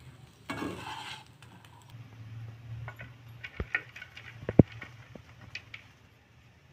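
Spatula tossing and scraping fried rice in a non-stick kadai, then a few sharp clicks of the spatula against a plate as the rice is served, one much louder than the rest about two-thirds of the way in.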